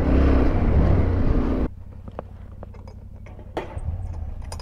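Yamaha Ténéré 700's parallel-twin engine running under way on a dirt track, with wind and riding noise. Under two seconds in it cuts off abruptly to a much quieter low rumble with a few scattered light ticks.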